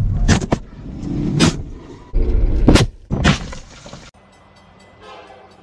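Car crash heard from inside the cabin: a series of loud bangs and crunches over about four seconds, with the airbags going off. It cuts off suddenly.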